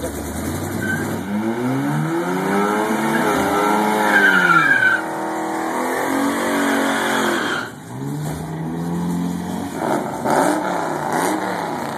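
Compact Chevy pickup's engine revving hard during a burnout, the pitch rising and falling about three times, with the tyres spinning and squealing.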